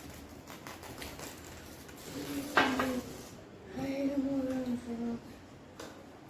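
Faint clinks of utensils on dishes, then a person humming twice: a short hum about two and a half seconds in and a longer, steady one that dips slightly in pitch near its end.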